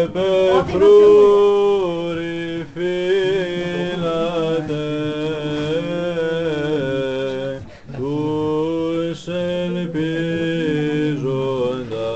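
Orthodox church chant sung a cappella. A melody moves in long held notes over a steady low note held beneath it, with a brief break for breath about eight seconds in.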